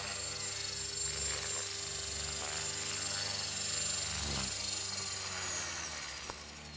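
Align T-Rex 450 Pro electric RC helicopter's brushless motor and rotor running with a steady multi-tone whine after touchdown, the pitch starting to fall near the end as the head speed drops and the rotor begins to spin down.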